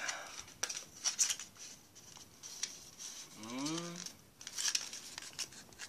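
Hands handling the packaging of an e-cigarette kit, a clear plastic case and its white plastic insert tray being lifted and moved: a series of short sharp clicks and scrapes of plastic. A brief rising voice sound about halfway through.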